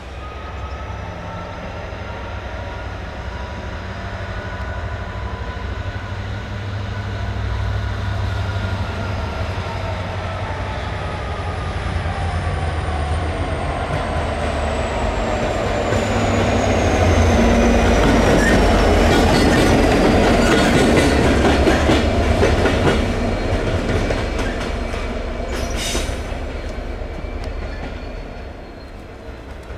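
Class 66 diesel locomotive running light engine, its two-stroke V12 diesel engine running with a steady low rumble and a faint high whine. The wheels clatter over rail joints and pointwork, loudest about two-thirds of the way through as it passes close, then the sound dies away near the end.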